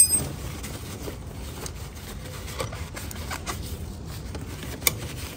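Paper towel rustling and light scraping as a hand works around the brake master cylinder and its hard lines, with scattered small ticks. There is a sharp click right at the start and another near the end.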